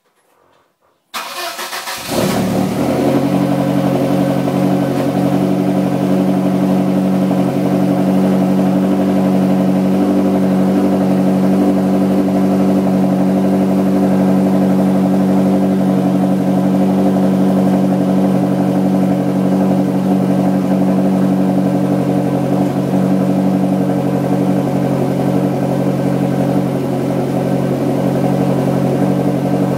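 Lotus Esprit engine, fitted with an aftermarket Larini exhaust, starting up: about a second in it cranks and catches, then settles into a steady, loud idle through the exhaust.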